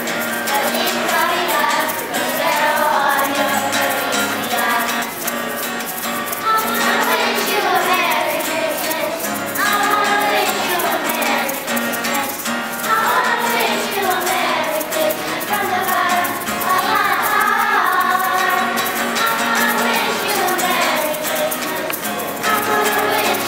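A group of children singing a song together in unison, accompanied by a strummed acoustic guitar.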